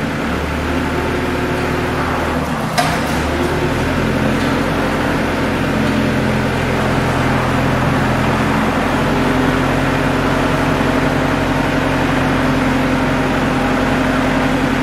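Overhead crane drive motors running under load, a steady mechanical hum whose pitch steps up and down several times as the drives start and stop, with a sharp click about three seconds in.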